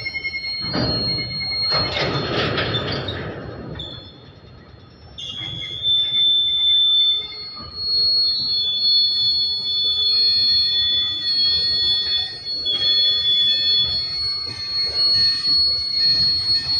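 Goods train of freight wagons rolling slowly past, its wheels squealing in long, high-pitched tones that come and go over the rumble of the wagons. A louder rush of rumbling comes in the first few seconds, then a short lull, and the squealing returns loudly about five seconds in.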